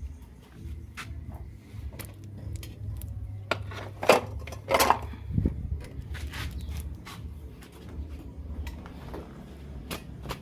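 Clinks and knocks of kitchen pots and dishes, with a few louder clatters about four to five seconds in, over a steady low rumble.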